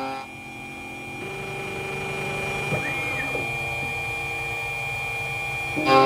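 Electronic code-cutting key machine milling a high-security Honda key blank: a steady motor whine that comes in about a second in, with a brief rising-and-falling tone about three seconds in.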